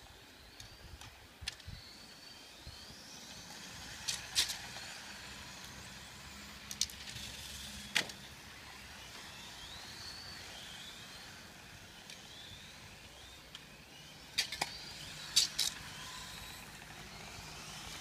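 Radio-controlled cars lapping the track, their motors a faint whine that rises and falls in pitch as they speed up and slow down. Several sharp clicks stand out above it, about four, seven, eight, fourteen and fifteen seconds in.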